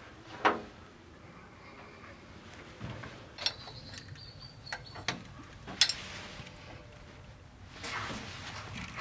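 Scattered clicks and knocks of hand tools and parts being handled while fitting cooling hoses in an engine bay, with a brief high squeak in the middle.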